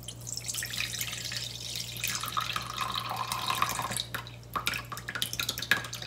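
Water poured from one stainless steel bowl into another, splashing into the liquid already in the lower bowl; this is the cloudy upper water being poured off settled azuki bean paste. The steady pour breaks into irregular splashes and drips in the last two seconds.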